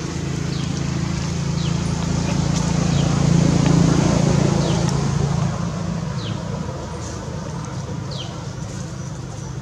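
A motor vehicle's engine passing by: a low hum that grows louder to a peak in the middle and then fades away. Short high chirps come every second or two.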